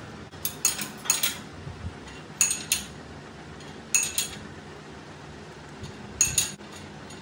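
Light metal-on-metal taps, each with a short bright ring, coming mostly in pairs about a quarter second apart, five pairs in all, over a faint steady hum.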